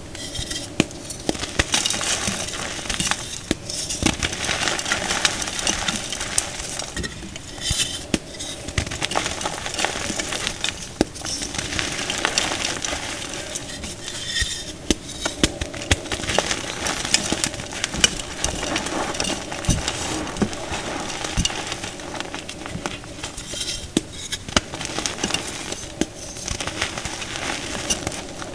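Dyed chalk blocks being crushed and crumbled by hand: a continuous crunching and crackling of breaking chalk and squeezed loose powder, with many sharp little cracks.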